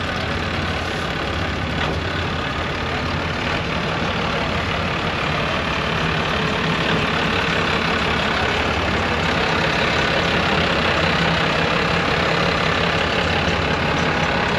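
A vehicle engine running steadily at idle or low speed, with a steady rush of traffic noise, growing a little louder about halfway through.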